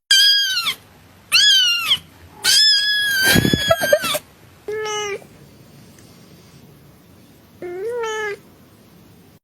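Cat meowing: three high-pitched meows, the third drawn out, then two shorter, lower meows spaced a few seconds apart.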